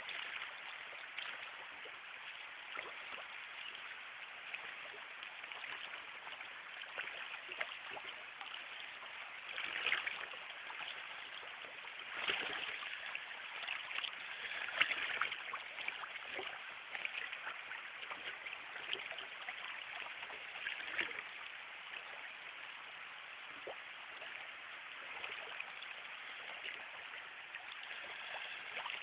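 River water running steadily over shallow riffles, an even rushing with a few brief louder moments roughly a third and halfway in.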